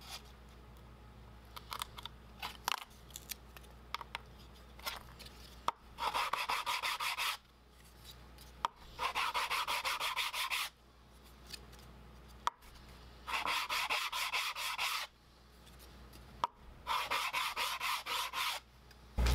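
A wooden box panel is rubbed quickly back and forth on a sanding board, sanding off the leftover stubs of the CNC holding tabs. The sanding comes in four bursts of rapid strokes, each lasting a second and a half to two seconds, and a few faint clicks of a razor blade trimming tabs come before them.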